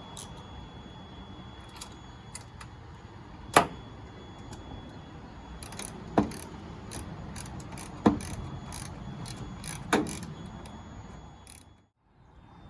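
Ratchet wrench clicking as a bolt and nut are tightened, with four sharp metal clanks about two seconds apart. The sound drops away suddenly just before the end.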